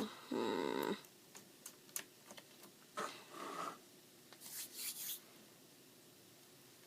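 Sticky, under-activated glue slime being worked and pulled off the hands: soft sticky clicks and squelches in short bursts, a louder one near the start, trailing off for the last two seconds.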